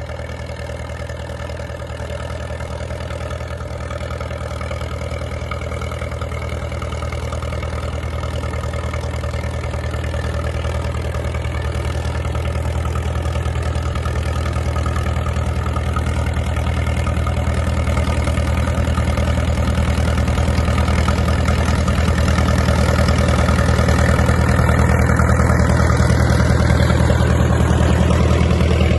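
International Harvester TD-6 crawler tractor's diesel engine running steadily under load as it pushes a vee snowplow through deep snow. The engine grows steadily louder as the crawler approaches.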